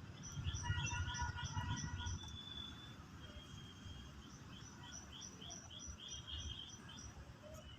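Birds chirping in quick runs of short high notes, about four a second, over a low rumble that fades out about two seconds in.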